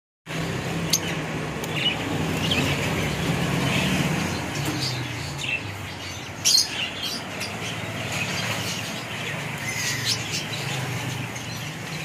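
Many caged lovebirds chirping, with short calls scattered throughout, over a steady low hum.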